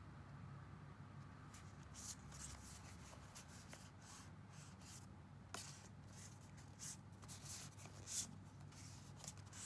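Oracle cards brushing and sliding against each other as a hand moves over a fanned spread to pick one. Soft scattered rustles, with a few sharper card scrapes near the end.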